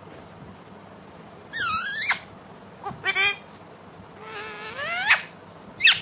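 Indian ring-necked parakeet giving four high, squeaky calls: a warbling one about one and a half seconds in, a shorter one around three seconds, a long call sweeping upward in pitch near four to five seconds, and a brief squeak near the end.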